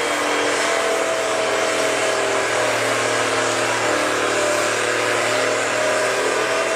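Case 1030 farm tractor's engine running hard and steady under heavy load during a tractor pull, its pitch wavering slightly.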